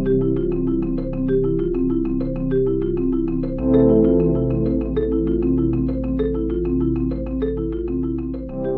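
Background music: a light, upbeat tune on marimba or similar mallet percussion over a held bass, with quick regular notes.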